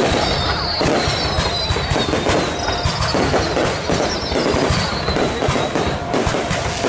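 Fireworks display: a rapid, continuous barrage of bangs and crackling bursts, with several high whistles that slide down in pitch during the first few seconds.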